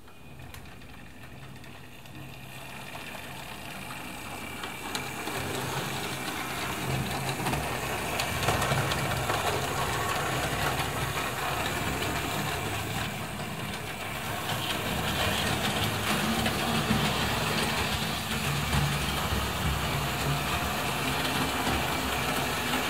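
Hornby Dublo model tank locomotive running on tinplate three-rail track with two coaches in tow, with a steady motor whirr and wheel rattle. It grows louder over the first several seconds as the train comes closer.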